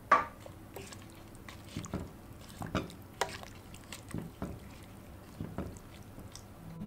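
A plastic spoon stirring bok choy and Chinese cabbage through broth in a stainless steel pot: wet sloshing of liquid and leaves, with irregular knocks of the spoon against the pot. The loudest knock comes right at the start.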